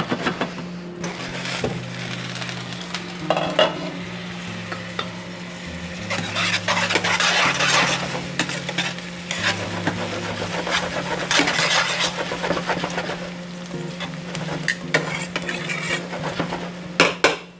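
Sliced onions sizzling in a stainless steel skillet on low heat as they caramelize, stirred and tossed with metal tongs that scrape and clink against the pan.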